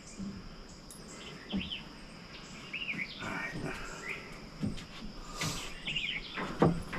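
Songbirds chirping in short calls, over a steady high-pitched tone, with a few light knocks from wood-framing work.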